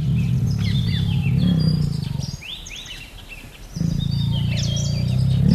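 Tiger roaring in two long, low calls, the first breaking off after about two and a half seconds and the second starting over a second later. Birds chirp high and faint behind it.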